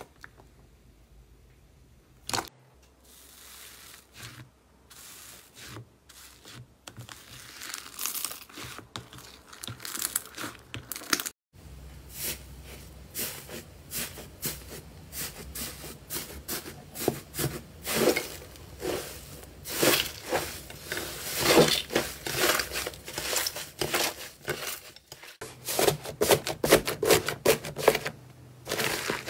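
Slime being squeezed and stretched by hand, giving a run of sticky crackles and pops. It starts with a few sparse clicks, then grows denser and louder, with a few abrupt breaks where the sound cuts off.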